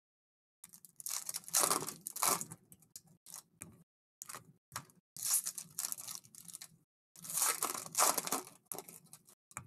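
Foil trading-card pack wrappers being torn open and crinkled by hand, in three bursts of ripping, with light rustling of the packs between them.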